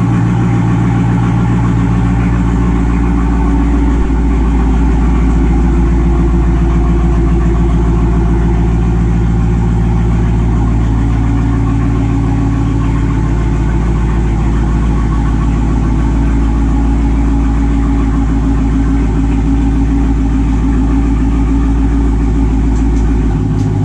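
Dodge Charger 392 Daytona's 6.4-litre HEMI V8 idling steadily after a cold start.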